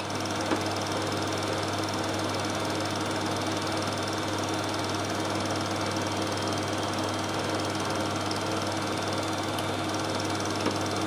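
8mm film projector running: a steady mechanical whirr with a constant low hum and hiss.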